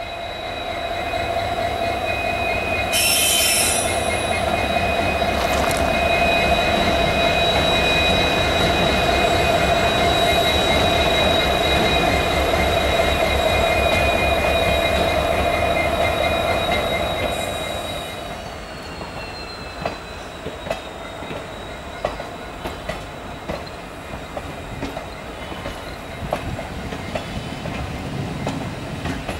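WDP-4B diesel-electric locomotive passing slowly with its engine running, a low rumble under a steady high whine, with a brief hiss about 3 s in. After about 18 s it fades and the coaches roll by with irregular wheel clicks over rail joints and a faint wheel squeal.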